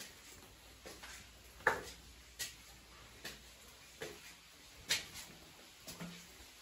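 Footsteps climbing narrow stone stairs: about seven short, sharp steps, roughly one a second.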